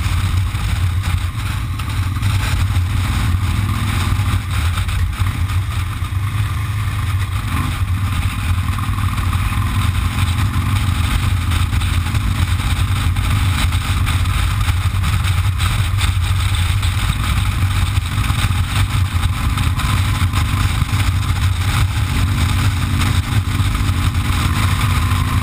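Cruiser motorcycle engine running steadily at cruising speed, heard from on the bike, with constant wind and road noise over it.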